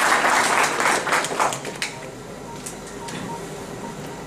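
Audience applauding, dying away about a second and a half in, followed by a few light clicks.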